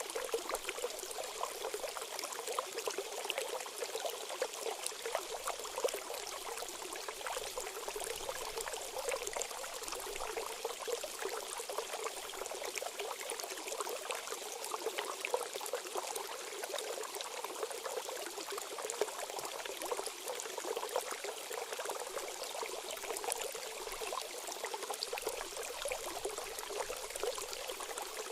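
Water running and pouring steadily, with a fine, continuous splashing and spattering.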